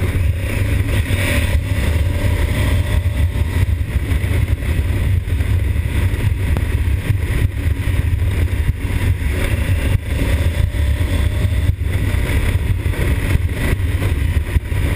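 2020 Honda Africa Twin's 1084 cc parallel-twin engine running steadily as the motorcycle rides along at road speed, picking up a little speed, with wind rushing over the microphone as a constant low rumble.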